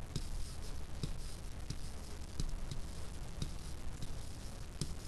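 Stylus writing on a digital whiteboard or tablet: irregular sharp taps and light scratches as numbers are written by hand, over a low steady hum.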